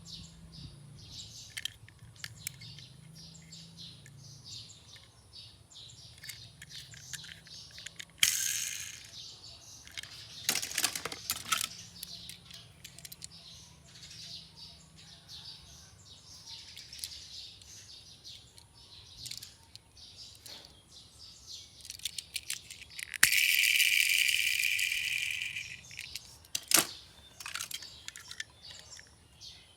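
Birds chirping, with scattered clicks and rattles. There are a few louder noisy bursts, the loudest lasting about three seconds around two thirds of the way through.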